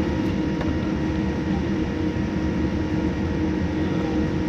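Steady cabin noise inside a Boeing 787-9: an even low rumble with a few constant humming tones.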